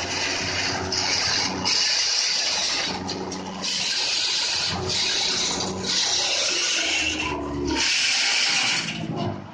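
Tractor-driven cotton stalk shredder chopping cotton plants: a loud rushing noise of chopped material blown out of the chute. It surges in blocks with short dips every second or two as stalks are fed in, over the steady low hum of the Kubota 55 hp tractor's engine.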